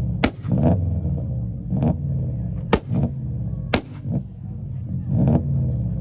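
Subaru engine revving in short blips over a steady idle, with three sharp bangs, the loudest things heard.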